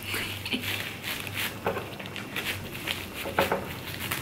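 Plastic cling wrap crinkling and rustling in short, irregular bursts as a sushi burrito is rolled up in it by hand.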